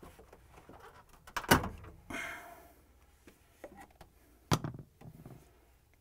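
Gloved hands and a flat-blade screwdriver prying the old rubber drain tube grommet out of a refrigerator freezer's drain hole: a few sharp clicks and knocks, the loudest about one and a half seconds in, and a short scrape just after two seconds.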